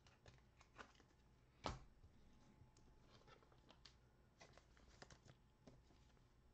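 Faint handling of trading cards: light clicks and rustles as cards are slid and flipped through, with one sharper tap about a second and a half in.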